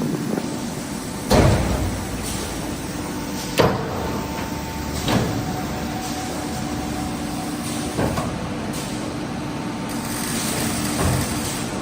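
Industrial fin-forming machinery running with a steady hum, punctuated by irregular sharp clunks about every two to three seconds.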